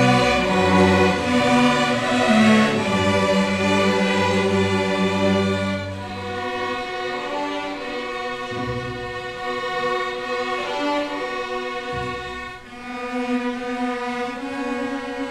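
Seventh-grade string orchestra, mostly violins, playing held, sustained notes. The low strings drop out about six seconds in and the music turns quieter, then grows fuller again near the end.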